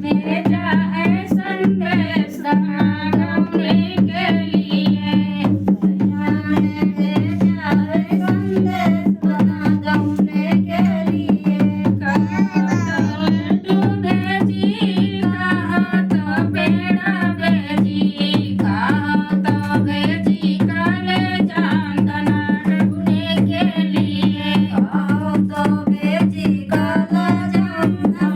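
Dehati folk song: a voice singing over an evenly played hand drum, with a steady low drone underneath.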